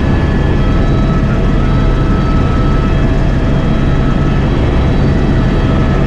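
Helicopter in flight heard from inside the cabin: steady, loud rotor and engine noise with a constant whine.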